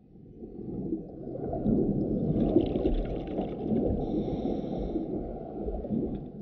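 Muffled underwater rumbling and bubbling that fades in at the start, with a higher gurgle over it around the middle.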